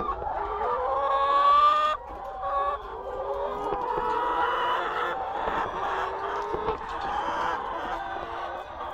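A flock of laying hens clucking and calling over one another, with one long call rising in pitch that cuts off about two seconds in.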